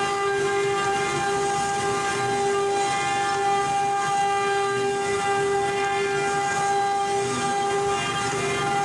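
Single-head CNC router's spindle running at speed: a steady, high machine whine with a rough noise underneath.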